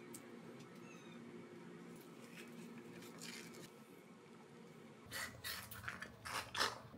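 Low steady room hum with a few faint ticks. About five seconds in comes a quick run of wet mouth smacks and clicks from someone chewing soft cream-filled bread.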